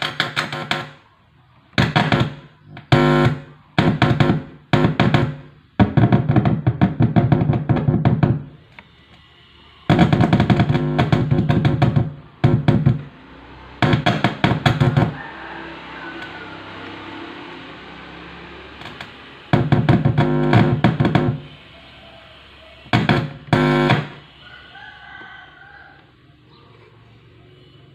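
Amplifier's loudspeaker buzzing with mains hum in repeated bursts of a second or two, cutting in and out about ten times as a hand touches and leaves the amplifier's input. The buzz means the amplifier is working.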